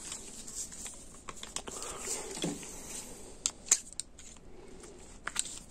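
Light metallic clicks and handling noise of a socket being pulled off a torque wrench by hand, with two sharper clicks about three and a half seconds in.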